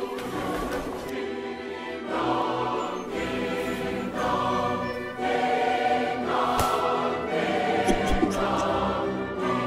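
Film score with a choir singing long, sustained chords that change every second or two. A few brief, sharp knocks sound in the second half.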